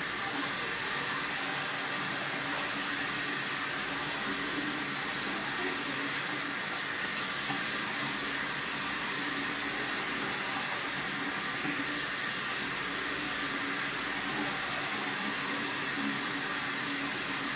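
Water running steadily from a bathroom sink tap, an even hiss that does not change.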